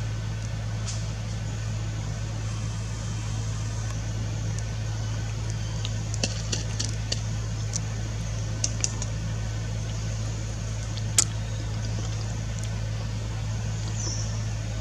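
A steady low machine hum, like a motor running, with a few sharp clicks in the middle. The loudest click comes about eleven seconds in.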